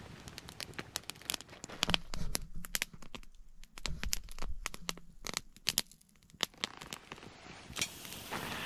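Wood campfire crackling, with irregular sharp pops and snaps from the burning wood.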